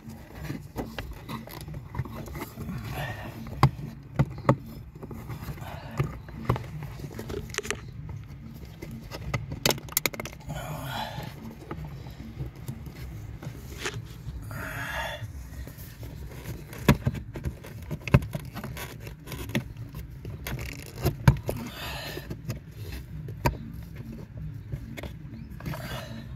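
Scattered small clicks, knocks and scrapes of hands and parts being worked while fitting a heater core tube into place, with a few short rustling scrapes, over a low steady hum.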